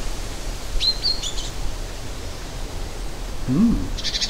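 Steady background hiss while a man chews, with a short closed-mouth 'mmm' about three and a half seconds in, then a metal fork clinking against a ceramic plate near the end.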